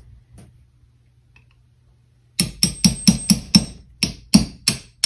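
Small hammer tapping a retaining pin back into a pistol frame at the mainspring: one light tap, a pause of about two seconds, then rapid light taps, about five a second, from about halfway in.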